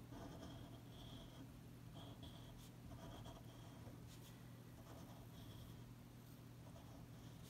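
Faint scratching of a fine-liner pen tip on paper, in short irregular strokes as petal outlines are drawn, over a steady low hum.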